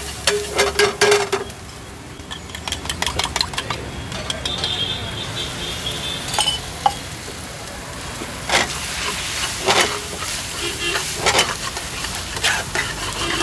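Egg rice frying and sizzling in a black pan on a gas burner, with a metal spatula clanking and scraping against the pan as it is stirred. The clanks are thick at first, thin out while eggs are cracked into the pan near the middle, then come quickly again as the eggs are scrambled into the rice.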